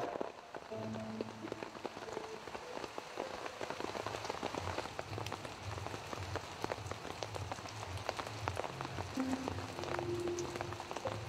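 Steady rain falling on trees and leaves, with many single drops ticking close by. A low rumble comes and goes underneath.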